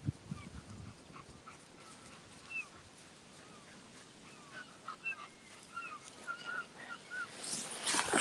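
A dog whining in short, high squeaks, coming more often as it goes on. A loud rustling rush of noise comes in near the end.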